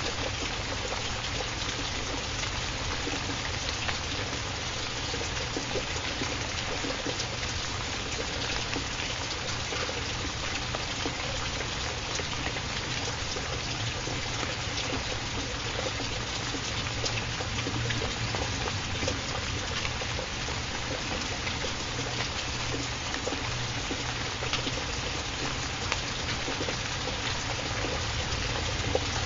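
Steady recorded rain: an even hiss with a fine patter of drops. It serves as the background bed of a subliminal affirmation track.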